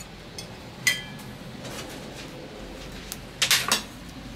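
Metal kitchen tongs clinking while picking up pieces of grilled meat: one sharp ringing clink about a second in, then a quick run of three or four clacks near the end, the loudest.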